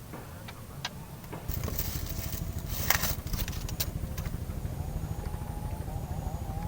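A small engine running steadily with a pulsing low rumble, growing louder about a second and a half in, with a faint whine joining later and a few sharp clicks.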